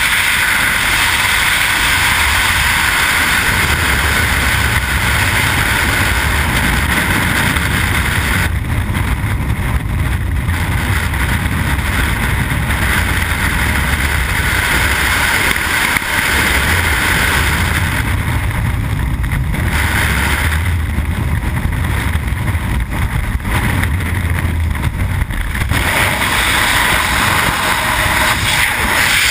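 Loud rushing wind buffeting a helmet-mounted camera's microphone as a wingsuit flyer glides through the air, with a low rumble underneath. The hiss turns duller for a couple of seconds about a third of the way in, and again for several seconds later on.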